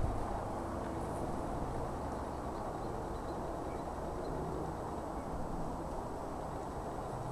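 Steady low rumbling background noise with a faint hum, without distinct events.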